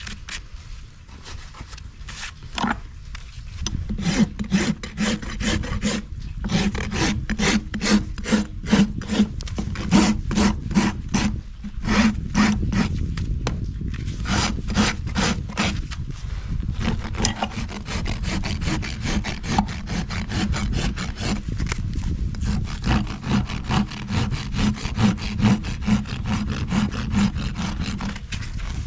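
A farrier's hoof rasp is drawn back and forth across the underside of a horse's hoof, dressing it level during a trim. The quick, regular rasping strokes get going about four seconds in and come about two to three a second, running closer together in the second half.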